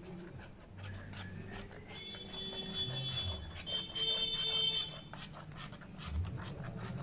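Metal spatula stirring and scraping thick lentil tadka in a pan. A high whistle rises, then holds with a hiss for a few seconds in the middle before stopping.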